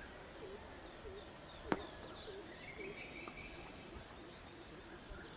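Outdoor background: a steady high insect-like hiss and a short low chirp repeated two or three times a second. A single sharp knock comes a little under two seconds in.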